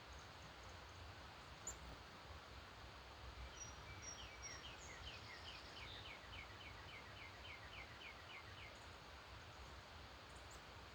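A songbird singing a run of short, evenly repeated downslurred notes, about three a second for some five seconds, over faint steady background noise. A single brief high chirp comes near the start.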